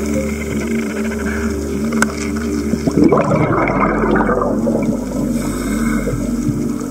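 Underwater sound from a diving camera: a steady, layered hum throughout, and a burst of bubbling noise from a scuba diver's exhaled breath about three seconds in.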